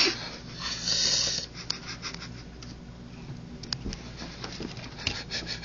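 Rustling and scraping close to the microphone, as of clothing and hands rubbing against the camera, with a louder hissy rustle in the first second and a few faint clicks.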